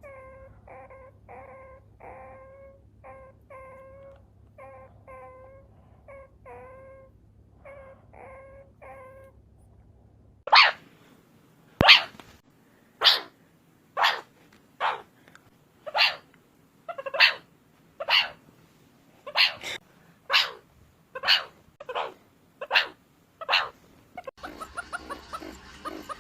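Meerkat calls: a run of short, even-pitched chirps, two or three a second, then about ten seconds in a much louder series of sharp calls, about one a second. Near the end a noisier, busier stretch of calling takes over.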